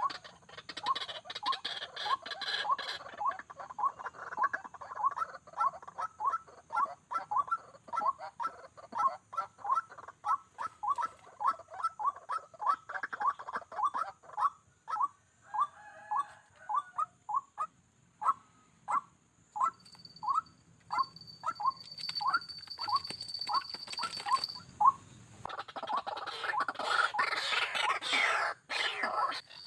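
White-breasted waterhen calling: a long run of short, evenly repeated notes, about two or three a second, which spaces out and stops a few seconds before the end. A burst of noise follows near the end.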